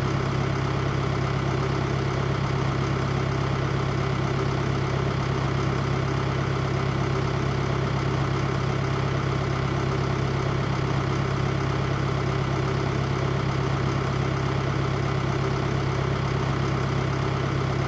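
Tractor engine running steadily at an even speed, a constant low hum with no change in revs.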